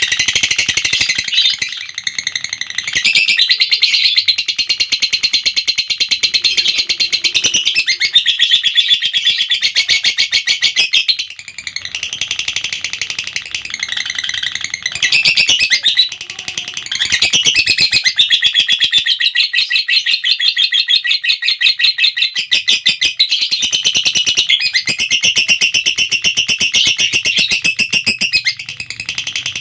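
Lovebird singing its long 'ngekek' chatter: a rapid, unbroken string of high-pitched notes held for many seconds at a time, pausing briefly twice before resuming.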